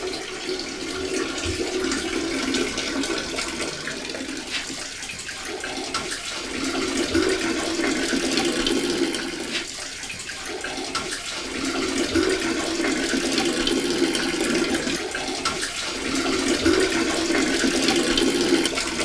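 Water running and splashing, with a low hum that comes and goes in stretches of about two seconds.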